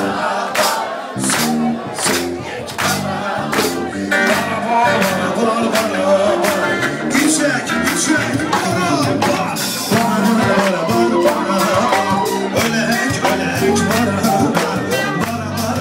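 Loud party music with a steady beat, about two strokes a second, and a singing voice over it.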